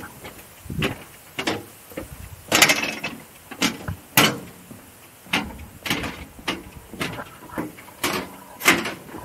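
Footsteps walking along a railway track, each step a short crunch at a steady walking pace of just under two steps a second.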